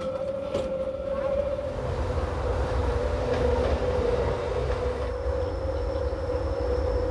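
Metre-gauge electric train running: a steady low rumble with a steady whine over it. A thinner, higher tone joins about five seconds in.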